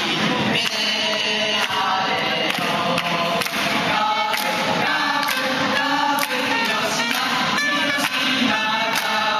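A group of young men singing a song together, with hand claps keeping a steady beat about every half second.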